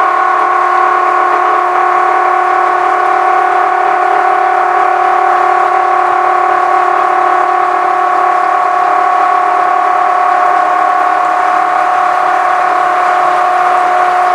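Battery-powered reversible electric oil-change pump running with a steady whine, drawing warm oil out of a marine diesel engine through a hose.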